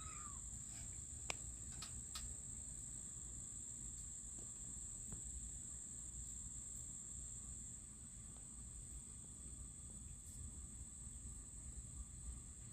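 Faint, steady high-pitched chorus of crickets trilling without a break, with a few soft clicks in the first couple of seconds.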